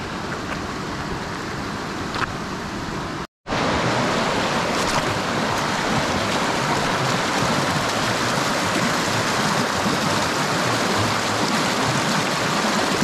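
Rocky trout stream rushing over stones and through a riffle, a steady rush of water. A brief cut comes about three seconds in, and after it the rush is louder and fuller.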